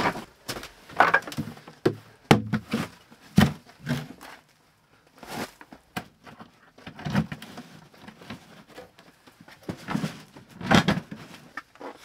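Irregular knocks and thunks of a plastic tote and a portable diesel heater being set down and shifted into place by hand, with a short quiet spell partway through.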